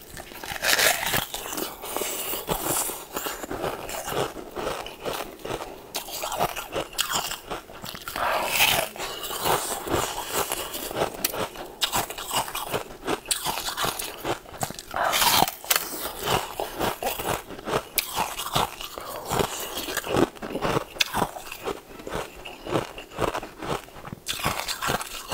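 Close-miked biting and crunching of pink translucent candy, with many sharp, irregular crunches as it is chewed.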